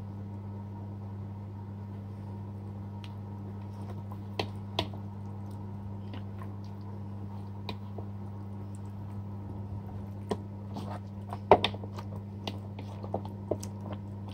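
Hands rubbing crushed garlic into a raw whole chicken in a bowl: soft wet squelches and clicks of the skin and flesh being worked, sparse at first and more frequent in the second half. A steady low hum runs underneath.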